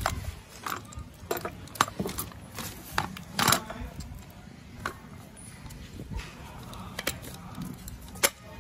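Scattered clicks and knocks of a DeWalt DCD708 cordless drill and its 20V battery packs being picked up and handled, with a sharp click shortly before the end.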